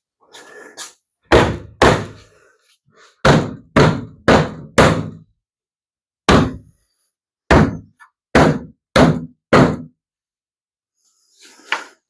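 About a dozen heavy thunks of plastic pool-ladder sections being pounded down to seat them onto the frame, in uneven groups: two, then four, then one, then five.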